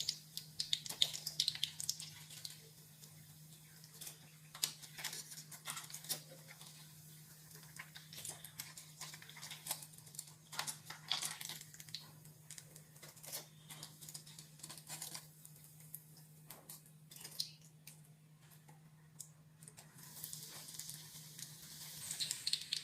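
Breaded bread pies frying in hot oil: faint, irregular crackles and pops over a steady low hum.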